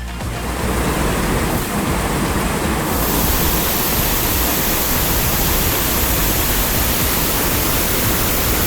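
Natural waterfall rushing: a loud, steady roar of falling water, turning hissier about three seconds in.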